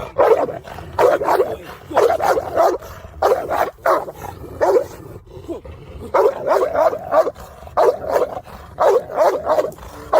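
A dog barking repeatedly, short barks coming in quick runs of two to four with brief gaps between them.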